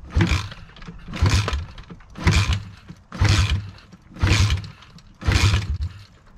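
Cold Piranha YX 125cc pit bike engine being kick-started six times, about one kick a second, turning over without firing because a compression tester is fitted in place of the spark plug. Each kick is a short rattling crank of the kickstarter and engine, the kicks that build up the compression reading.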